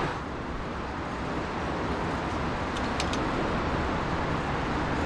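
Steady road traffic noise from the Sydney Harbour Bridge deck below, heard from up on the steel arch, with a few brief high ticks about three seconds in.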